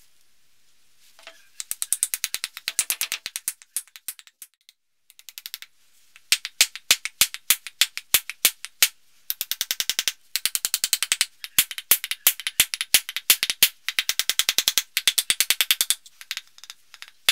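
Rubber mallet tapping quickly and repeatedly on the top of an axe handle, driving the axe head down onto the glued handle. The runs of sharp taps, several a second, start about a second and a half in and break off now and then for short pauses.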